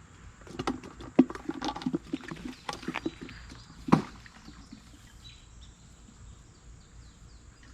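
Irregular clattering knocks and rattles as a small, struggling fish is unhooked and handled, with one sharp knock about four seconds in. After that it is quieter, with faint short high chirps.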